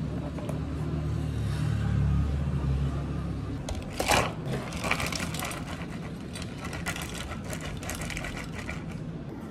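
Milk pouring from a carton into a plastic cup, with a steady low sound that stops about three and a half seconds in. Then ice is scooped and tipped into the cup: a loud clatter about four seconds in, followed by a few seconds of cubes clinking against the plastic.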